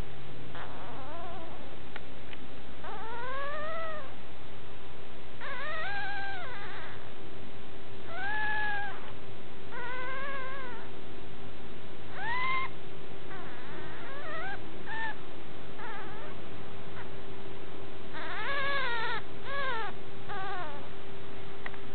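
Puppy crying: repeated short, high-pitched whining howls, each rising and then falling in pitch, a second or two apart, with several coming in quick succession near the end. A steady low hum runs underneath.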